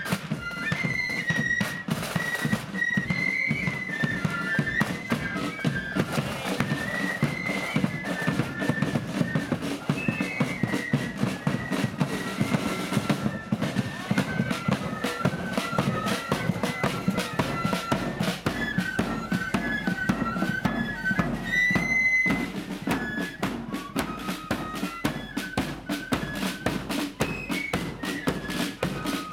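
Blood-and-thunder flute band playing a march while marching: a high flute melody over fast, continuous snare drumming and a bass drum.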